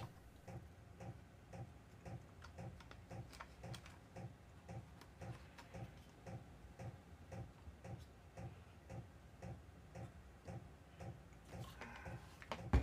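Faint, even ticking, about two ticks a second, with one louder knock near the end.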